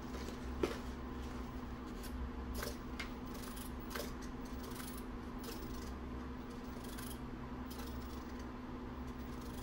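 Short, scattered clicks and whirs of a micro servo driving a model plane's aileron back and forth as a servo tester's knob is turned, over a steady low hum. The sharpest click comes about half a second in.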